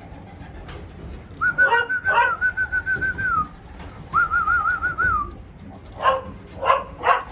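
A person whistling two long warbling whistles, the first about a second in and the second after a short pause, while a young Border Collie barks twice during the first whistle and three times near the end.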